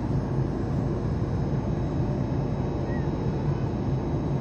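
Steady airliner cabin noise in flight: the even rush of the jet engines and the air streaming past the fuselage, heard from a window seat.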